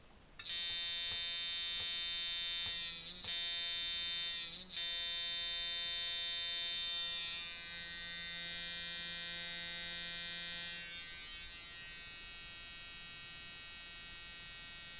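Seth Ciferri coil tattoo machine liner running at 6 volts: a fast, steady electric buzz from its armature bar hammering between the coils, starting about half a second in. It cuts out briefly twice a few seconds in, then runs on, settling slightly quieter near the end.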